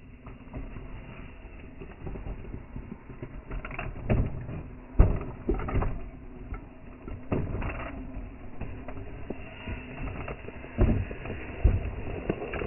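Small RC scale crawler climbing over rock: irregular knocks and cracks as its tyres and chassis bump and scrape the stone, over a low rumble, with the loudest knocks about four and five seconds in and near the end.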